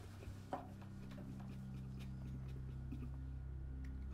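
A man crying softly, with a short sob or sniff about half a second in and fainter ones after, over a steady low hum.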